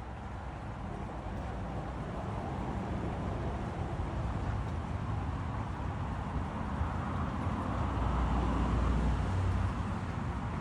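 Low rumbling background noise that builds to its loudest about nine seconds in, then eases off.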